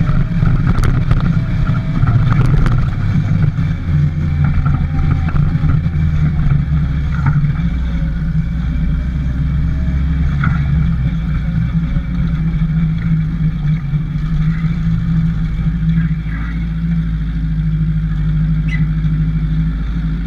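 Motorcycle engine running steadily while riding at low speed, with a few brief knocks and rattles, mostly in the first few seconds.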